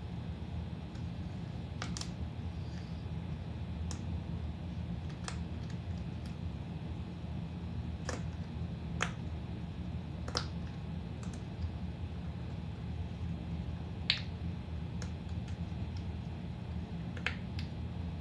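Bubbles of a pop-it fidget toy being pressed through, giving single short pops at irregular intervals, about a dozen in all, over a steady low hum.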